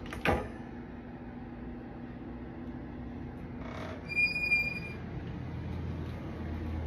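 A door lock or latch clicks just after the start; about four seconds in comes a brief, high, clear squeak.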